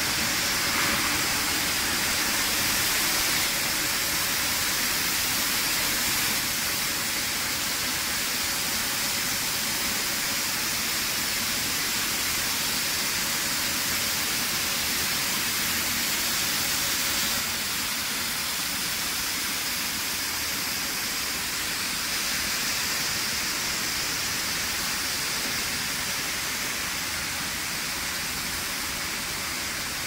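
Steady hissing machinery noise from a running power-cable extrusion line, dropping slightly in level a little past halfway.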